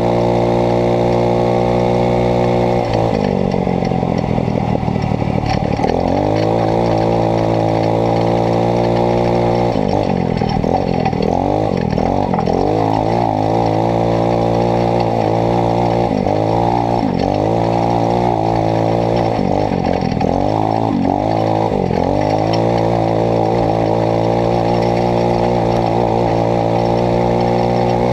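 Kandi 150cc dune buggy's single-cylinder engine running hard at a steady pitch, falling and climbing again about three seconds in. Through the middle it revs up and down over and over as the throttle is opened and closed, then settles back to a steady pitch near the end.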